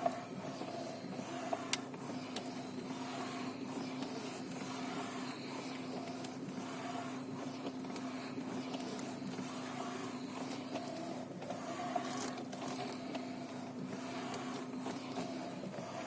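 A car's electric power steering makes a steady whirring hum with one constant low tone, broken by a few light clicks. The owner counts it as an extraneous noise in the steering and points to the electric power steering or the steering rack.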